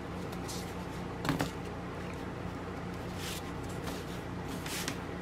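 A few brief rustles of cloth and packaging being handled, with one sharper soft knock about a second in, over a steady low hum.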